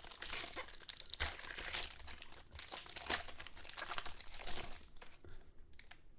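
Foil wrapper of a 2013 Triple Threads football card pack being torn open and crinkled by hand: a dense crackling that thins out near the end.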